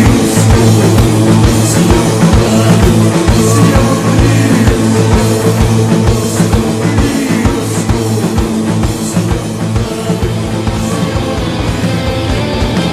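Loud rock music with distorted guitar and a fast, driving drum beat.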